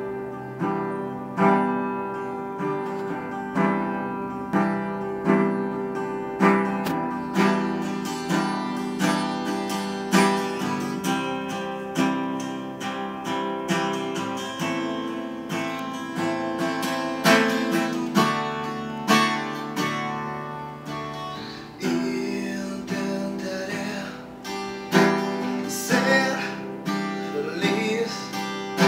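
Steel-string acoustic guitar played solo, chords strummed and plucked in a steady rhythm with an accent about once a second.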